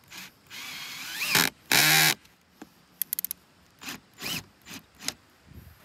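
Cordless drill driving a screw through a metal strut channel into an RV roof, in short bursts of motor whine that speed up and slow down. The loudest burst is about two seconds in, and a quick run of about five clicks follows about a second later.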